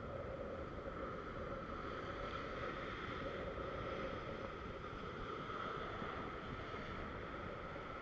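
Ocean surf breaking and washing over a coastal rock ledge, a steady rush of water with wind on the microphone, swelling a little as a wave breaks in the middle.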